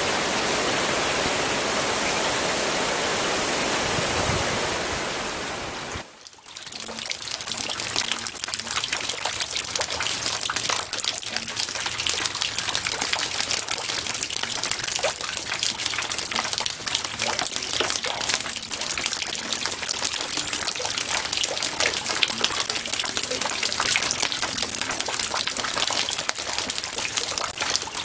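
Two rain recordings, one after the other. First comes steady heavy rain as an even, dense hiss. About six seconds in it cuts off and is replaced by lighter rain, with many separate drops ticking on a surface over a softer hiss.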